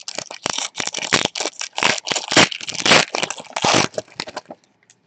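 Foil trading-card pack wrapper being torn open and crumpled, a quick run of crinkling rips that stops about four and a half seconds in.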